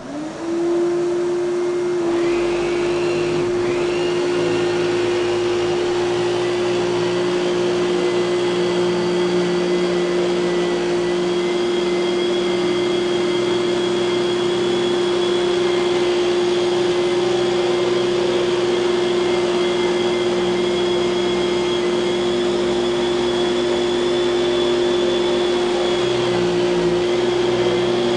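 A 1995 Kenmore canister vacuum's dual-stage Lamb motor is switched on and spins up within about half a second. It then runs steadily with a strong whine over a rushing of air, and a low hum joins about two seconds in.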